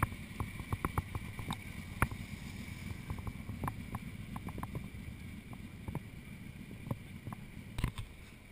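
Motorcycle engine running at low speed, a steady low rumble, with scattered sharp clicks over it.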